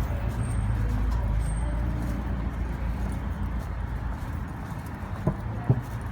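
Steady low rumble of background noise, with two short sharp knocks a little under half a second apart near the end.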